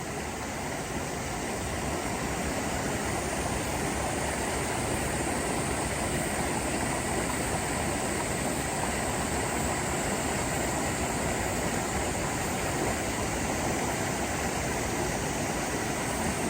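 Steady rushing noise of flowing stream water, even and unbroken throughout.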